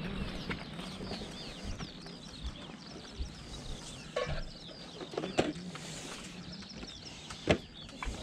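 Small birds chirping again and again over a low steady background hum, with a sharp knock about five seconds in and a louder one near the end.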